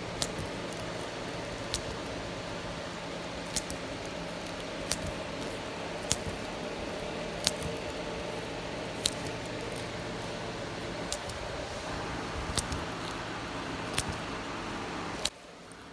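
Fingers handling and pressing white tape along a hair extension weft: sharp light clicks about every second and a half over a steady background hum.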